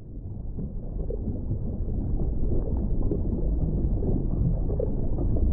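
Underwater ambience: a steady, muffled low rumble and wash of water, fading in over the first second.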